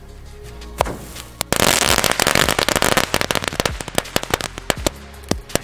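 Small 'XXL Crazy Balls' firework catching about a second and a half in, burning with a loud fizzing hiss and a rapid, irregular run of crackling pops that keeps going.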